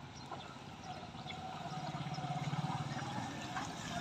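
Small motorcycle engines approaching along a dirt road, their hum growing steadily louder from about a second in.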